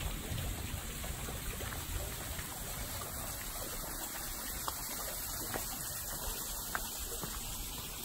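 Steady trickle of running water, with a few faint clicks of footsteps.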